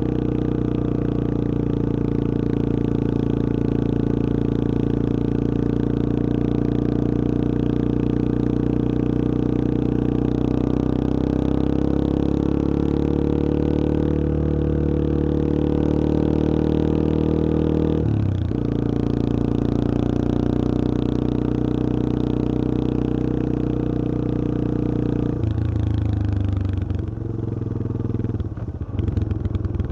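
Yamaha XT225 Serow's air-cooled single-cylinder four-stroke engine pulling steadily on the move, with a short break in the note partway through as a gear is changed. Near the end the revs drop and the engine note turns uneven as the bike slows.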